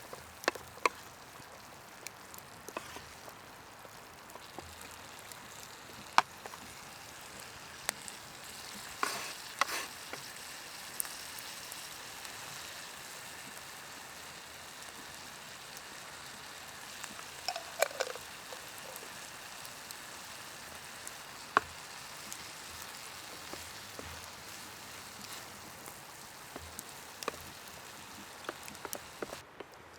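Open cooking fire with a steady sizzling hiss and sharp crackling pops, and a couple of brief scrapes.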